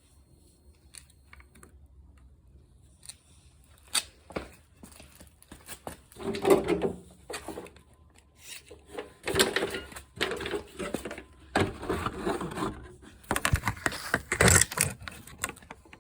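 Irregular clicks, knocks and rattles of small hard parts being handled, coming in busy clusters about six seconds in and again through the second half.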